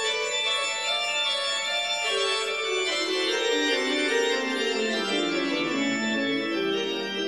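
Background music of sustained, held notes; through the second half a line of notes steps downward in pitch.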